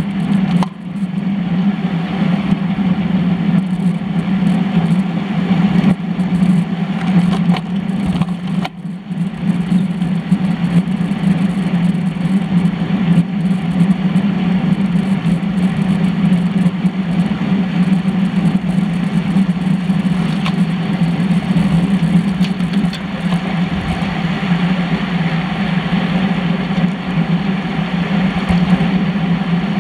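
Steady rumble of a road bike's tyres on asphalt, with wind noise, picked up by a camera fixed to the handlebars. The loudness dips briefly about a second in and again near nine seconds.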